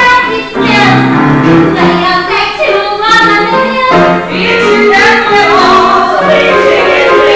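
Stage cast singing a musical-theatre number, female voices to the fore, over instrumental accompaniment.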